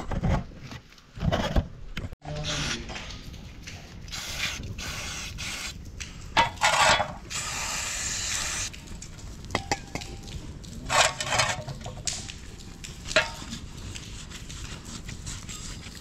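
Irregular scraping and rubbing sounds of hand work, with a longer hissing scrape about six and a half to nine seconds in and shorter ones later.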